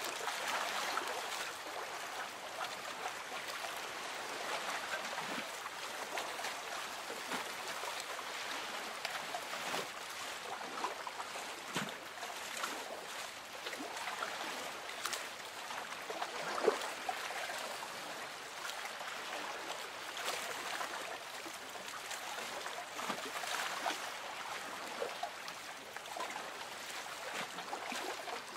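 Lake water gently lapping and trickling against a boat's hull, a steady wash with small splashes here and there and one slightly louder splash midway.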